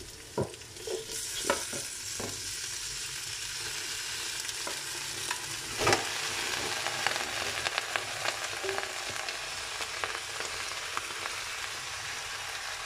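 Cubed raw pork belly hitting hot oil with fried garlic and onion in an aluminium pot and being stirred: a steady sizzle that builds as the meat goes in. A few knocks in the first two seconds and a louder one about six seconds in.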